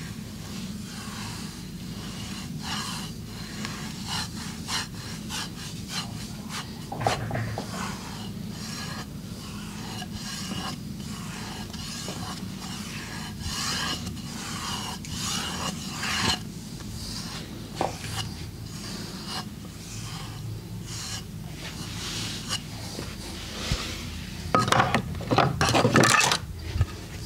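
Hands rubbing and scratching over the body during a massage: irregular rasping strokes, with a louder dense run of strokes near the end, over a steady low hum.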